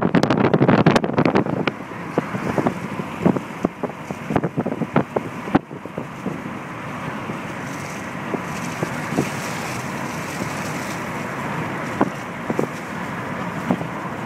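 Wind and road noise from a moving car, picked up by a phone held at the side window. Wind buffets the microphone hard for the first couple of seconds and crackles on and off through the first half, then settles into a steady rush of the car's travel.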